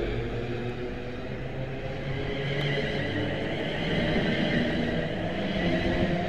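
Class 350 Desiro electric multiple unit moving past along the platform: steady rumble of wheels on rail with a few steady tones beneath, a little louder in the second half.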